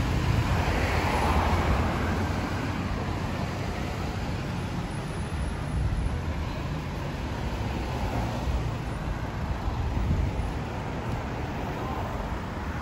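Road traffic on a multi-lane city street: a steady rumble of passing cars and motorcycles, swelling as a vehicle goes by in the first couple of seconds.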